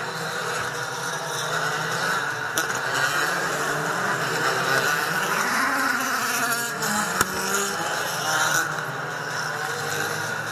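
DTM touring cars' V8 engines running as the field passes on the formation lap, several cars overlapping. One engine rises in pitch about halfway through.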